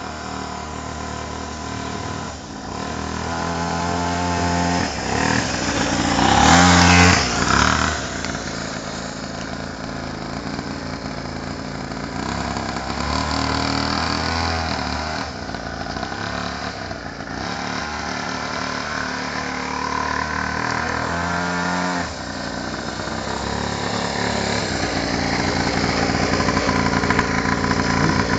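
Small engine of a children's mini motorcycle running and revving up and down, with its loudest rev about seven seconds in.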